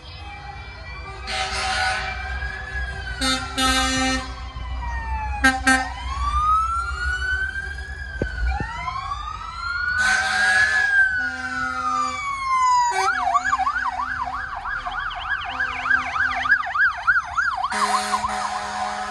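Fire engine sirens, several at once, in overlapping slow rising and falling wails. About 13 seconds in they switch to a fast yelp of about three sweeps a second. Loud horn blasts sound several times between them.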